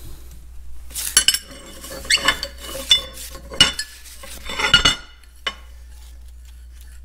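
Steel disc-brake hardware (clevis, pins and links) clinking and knocking together as it is handled on a metal workbench: a rapid run of clinks over a few seconds and a last knock, then only a steady low hum.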